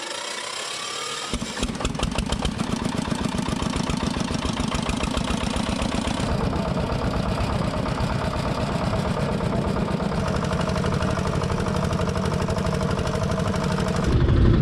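A fishing boat's engine catches about a second in, after a rising whine, then runs steadily with a fast, even beat.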